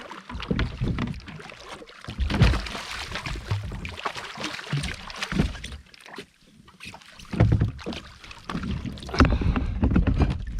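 Irregular knocks, rustling and water noise from a fishing kayak as a hooked ono (wahoo) is worked alongside and handled.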